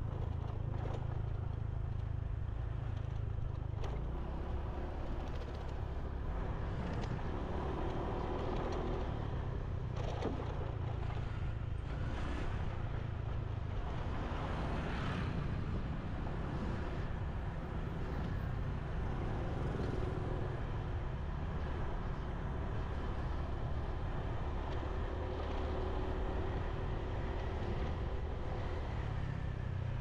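Steady low rumble of a motorbike on the move, engine and road noise together, with the sound of surrounding traffic. It swells briefly about ten and fifteen seconds in.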